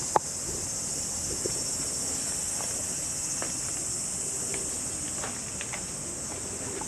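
Steady high-pitched chorus of insects, with faint scattered ticks and a single sharp click just after the start.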